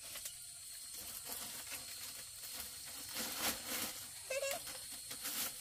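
Irregular rustling and crackling over a steady high insect hum, with one brief high call about four seconds in.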